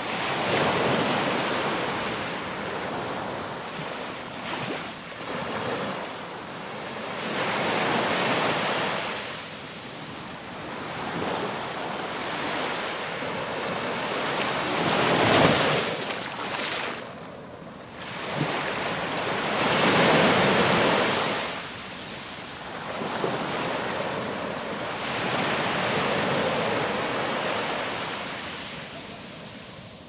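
Ocean waves surging in and washing back in slow swells several seconds apart, the biggest about halfway through.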